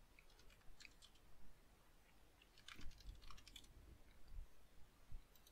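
Faint computer keyboard typing: two short runs of keystrokes, about a second in and again around three seconds in.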